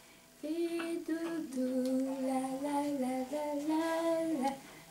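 A voice singing a slow, wordless melody of held notes that step up and down.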